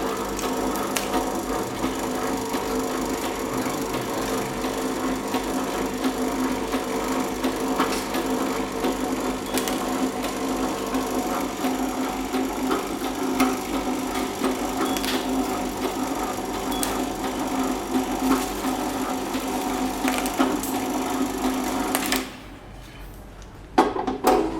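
Electronic component lead cutting machine running: a steady motor hum under a dense crackle of fine clicks, cutting off abruptly a couple of seconds before the end, followed by two or three sharp knocks.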